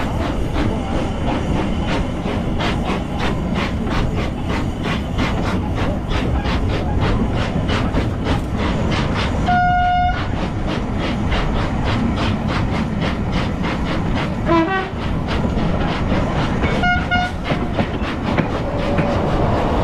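The Stephenson's Rocket replica steam locomotive and its carriage running along the track, a steady rumble with a regular beat. A short, high-pitched signal sounds about halfway through and again briefly near the end.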